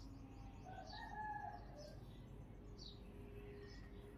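Faint outdoor birdsong: short high chirps repeating every half second or so, with a rooster crowing faintly about a second in.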